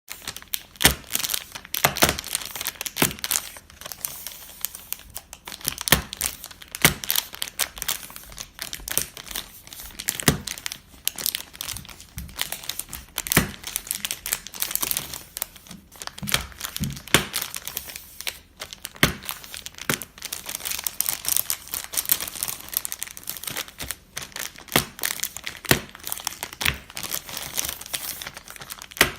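Wrapper of a large dark chocolate bar crinkling steadily as it is handled, with sharp cracks scattered throughout as the bar is pressed and snapped.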